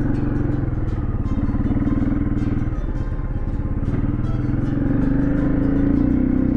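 Dirt bike engine running steadily under way on a dirt trail, getting a little louder about five seconds in.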